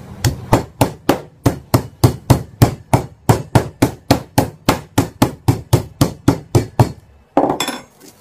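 Metal meat mallet pounding a raw pork chop on a plastic-covered chopping board to tenderise and flatten it: a steady run of sharp blows, about four a second, stopping about seven seconds in. A brief noise follows near the end.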